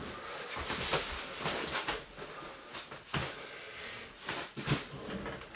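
Handling noise of boxes and furniture being shifted about: rustling with a few light knocks.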